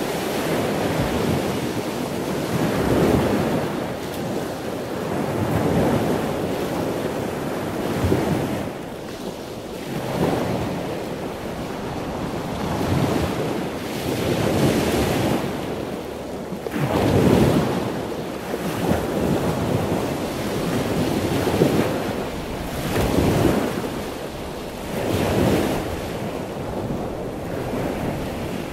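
Sea waves breaking on the shore in a continuous wash of surf that swells and falls every two to three seconds.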